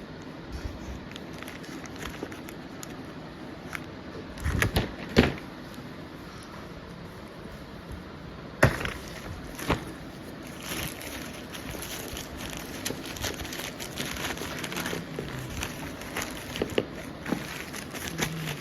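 Product packaging and parts being handled in an unboxing: rustling and crinkling with scattered small clicks, and a few sharper knocks, the loudest about five seconds in and another near nine seconds.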